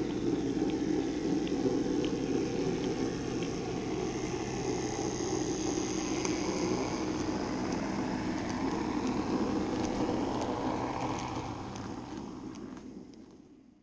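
N-scale model train running past on its track: a steady motor and wheel rumble with a light click about every three quarters of a second. It fades out near the end.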